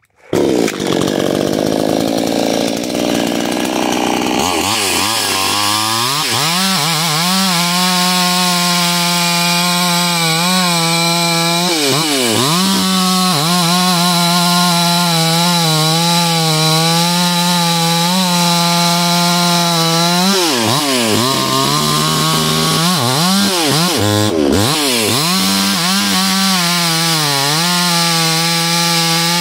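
Supmix 60cc two-stroke chainsaw at full throttle, rip cutting Douglas fir lengthwise along the grain. Its high, steady engine note sags briefly and recovers several times as the chain loads up in the cut.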